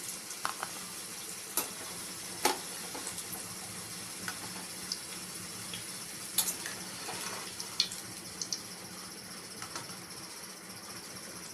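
Hot oil sizzling steadily in a frying pan, with several sharp clinks of a metal utensil against the pan or a dish.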